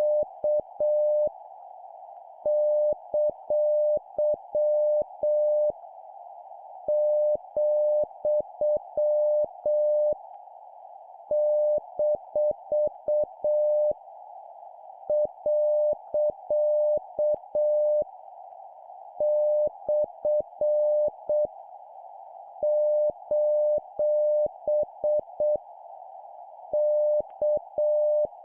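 Morse code (CW) practice tone sent slowly at 7 words per minute: a single steady beep keyed on and off in dots and dashes, forming about seven long punctuation characters separated by pauses of about a second. A constant band of hiss around the tone's pitch, like receiver band noise, fills the gaps, and each key-down and key-up brings a faint click.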